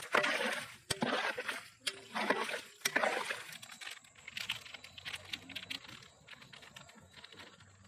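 A metal ladle stirring chopped goat intestines in a wet curry in a pot, with sloshing bursts and a few sharp clicks. The stirring is loudest in the first three seconds and quieter after that.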